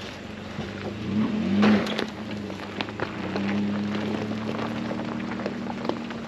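Chevrolet Colorado ZR2 pickup pulling away up a loose gravel dirt trail: its engine revs up about a second and a half in, then pulls steadily. The tyres crunch and pop over loose stones throughout.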